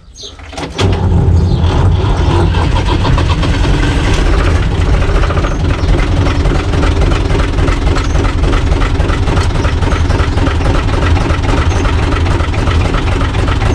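Universal U445 tractor's diesel engine started with a flaming torch held at the air intake: it catches within the first second and then runs steadily with an even rapid beat.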